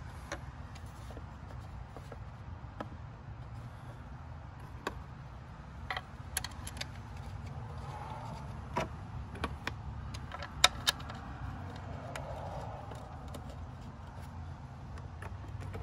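Scattered small metallic clicks and clinks of the ignition coil pack's bolts being set by hand, with two sharper clicks close together near eleven seconds in, over a steady low hum.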